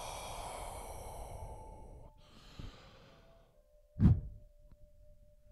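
A single short, loud puff of breath blown close to the microphone about four seconds in, blowing out a candle. Before it, faint ringing tones fade away.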